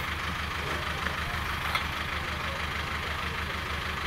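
A vehicle engine idling steadily with an even low throb.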